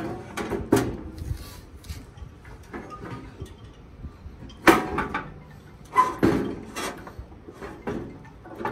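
Steel griddle top of a 36-inch Blackstone flat-top grill being lowered and shifted onto its burner frame: a series of metal clanks and scrapes, the loudest about halfway through.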